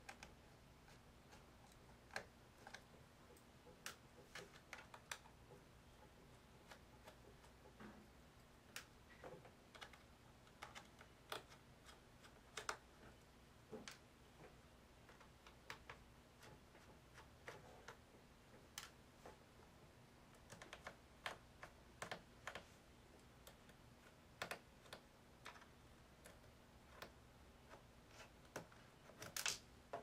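Faint, scattered clicks and ticks of a small screwdriver taking the screws out of a MacBook Pro unibody's aluminium bottom case, with a somewhat louder cluster of clicks near the end.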